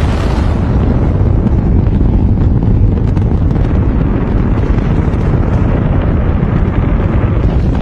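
Saturn rocket's first-stage engines firing at liftoff: a loud, steady, deep rumble of rocket exhaust.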